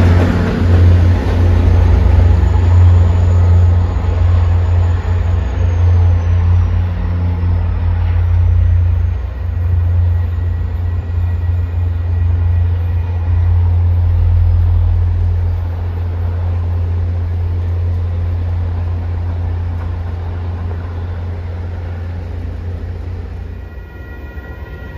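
MBTA commuter train's diesel locomotive passing close and then moving away: a deep, steady engine drone with rail noise, growing gradually fainter over the second half.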